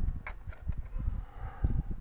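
Handling noise as wiring is pushed into plastic retaining clips on the back of a washing machine: irregular light knocks and bumps.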